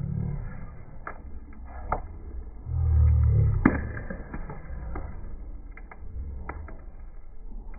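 Campfire crackling, with sharp pops every second or so over a low rumble that swells loudest about three seconds in.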